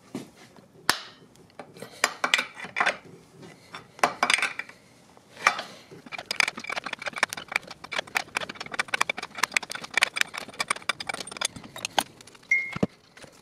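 Metal tools clinking, then a long run of rapid metallic clicks as the nut on a cam bearing puller is turned to draw the old cam bearing out of a Harley-Davidson Milwaukee-Eight engine case. There is a brief squeak near the end.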